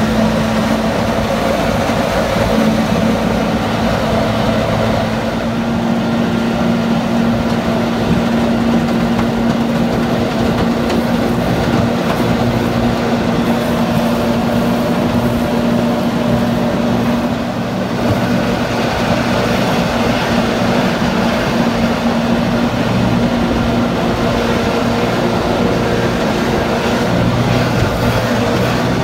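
Jet boat under way at speed: the engine and water jet run at a steady, loud drone, with water rushing along the hull. The drone eases briefly about halfway through, then picks up again.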